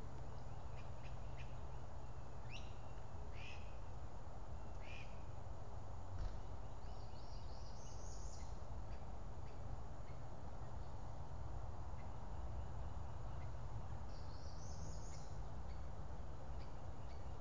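Small birds calling over a steady low outdoor rumble: several short chirps in the first five seconds, then two rising twittering phrases, about seven and fourteen seconds in. A soft thump comes about six seconds in.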